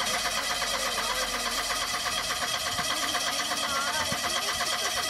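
Car's electric starter motor cranking the engine with a fast, even rhythm that stays steady throughout; the engine does not catch.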